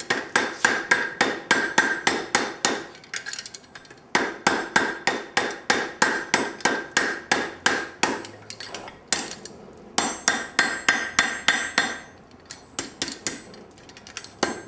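Blacksmith's hammer striking a hot, forge-welded chain link on the horn of an anvil, working the weld round the ring. The blows come quickly, about five a second, each with a metallic ring, in runs broken by short pauses and lighter taps.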